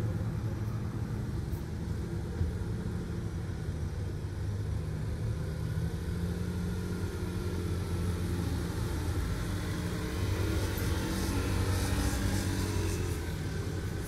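Steady low drone of a large ferry's engines as the ship comes into harbour, with some light crackling about ten seconds in.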